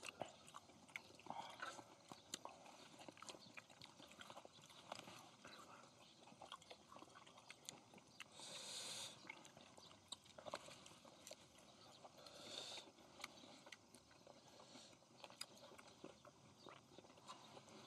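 Faint sounds of people eating: chewing, with scattered small clicks and a few short rustles.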